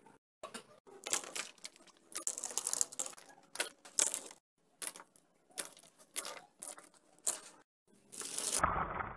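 Plastic marker pens clattering and rattling against each other as they are dropped in a pile and pushed around on a sketchbook on a wooden table: irregular clicks and rattles. Near the end a louder, muffled sound starts suddenly.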